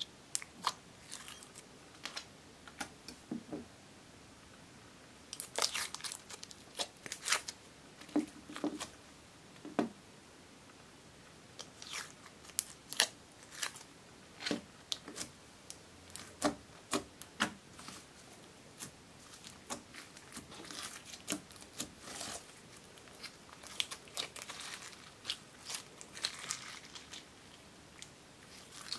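Slime being handled by hand, pressed, pulled and stretched, giving a run of sharp sticky clicks and crackles at an uneven pace.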